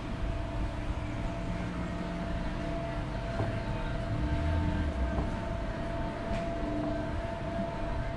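Summer toboggan sled rolling along its track, a steady rumble with a steady whining hum over it.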